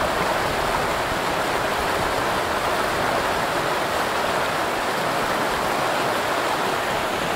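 Running water, a steady, unbroken rush like a stream flowing over rocks.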